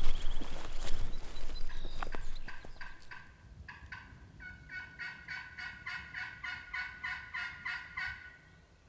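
Footsteps through grass, then a long series of turkey yelps, about three a second, growing louder toward the end before stopping.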